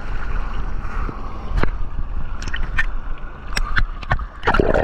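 Seawater sloshing and slapping against a camera held at the sea surface: a constant wash with irregular sharp splashes, the loudest just before the end.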